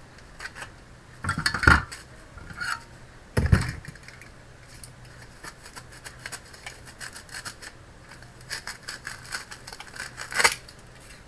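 Hands handling parts inside an opened all-in-one computer: scraping and small clicks, with a few louder knocks about one and a half, three and a half and ten and a half seconds in.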